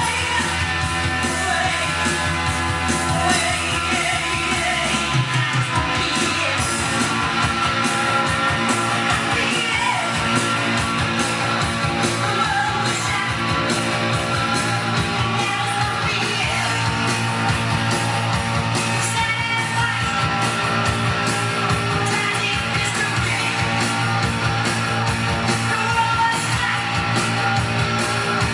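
Rock song with singing and guitar playing from a vinyl record on a turntable, with a steady beat throughout.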